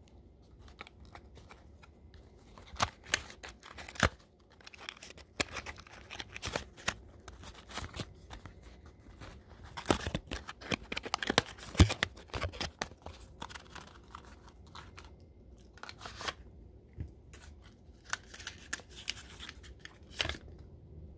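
A cardboard vape-cartridge box being opened by hand and its packaging handled: scattered clicks, scrapes and tearing, rustling sounds, busiest about halfway through.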